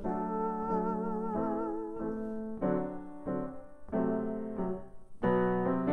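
Grand piano played solo: chords struck in a steady rhythm, roughly one every half-second to second, in an instrumental passage between sung verses.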